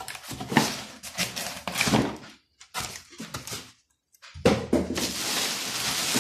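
Cardboard box flaps being opened and handled, with a string of knocks and scrapes. After a brief gap, a dense crinkling of the clear plastic wrap as it is pulled and bunched up around the machine inside the box.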